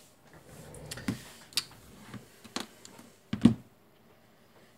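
Sharp clicks and taps of a tool against the hard plastic case of a USB wall charger being pried open at its glued seam, with faint scraping and one louder knock about three and a half seconds in.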